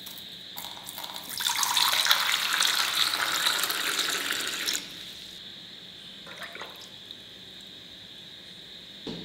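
Water poured from a cup into a small stainless-steel bowl holding salt, a steady splashing rush lasting about three and a half seconds that stops abruptly. Then a few light scrapes of a steel spoon stirring the salt water.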